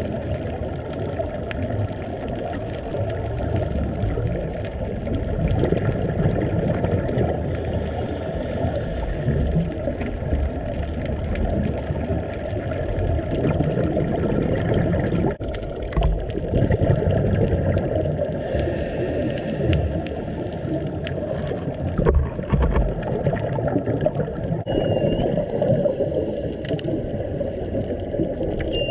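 Muffled underwater water noise, a low rumble with gurgling that swells and fades unevenly, picked up by a camera filming underwater.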